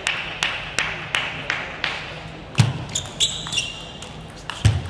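Celluloid table tennis ball bounced repeatedly, about three sharp clicks a second, as the server readies to serve; then a heavy thud, the ball clicking off bats and table in a rally, and a brief squeak of shoes on the court floor, with another thud near the end.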